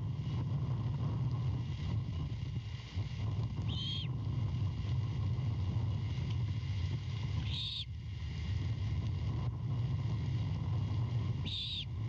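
Great horned owlet begging: three short, high-pitched calls about four seconds apart, over a steady low hum.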